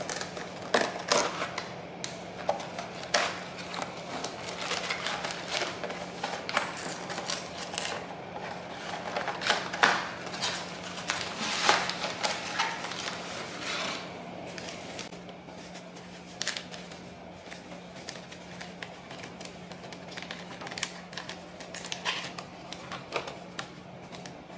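Cardboard tea box being torn open and wrapped tea bags handled, with paper rustling, crinkling and sharp clicks, busiest in the first half and sparser from about halfway. A faint steady low hum runs underneath.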